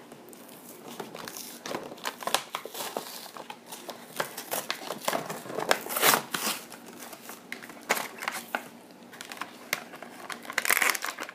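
Action-figure packaging being handled and torn open by hand, with irregular crinkling and crackling of plastic and cardboard.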